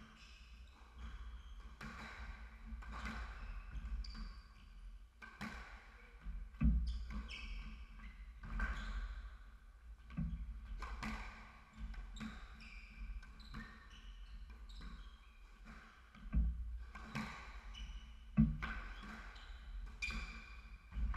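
Squash rally: the ball is struck by rackets and smacks off the court walls in sharp impacts at an irregular pace, about one to two a second, among short squeaks of shoes on the wooden court floor.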